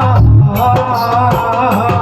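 Amplified Punjabi devotional jagran music: a sung vocal line with vibrato over a steady bass and percussion keeping a regular beat.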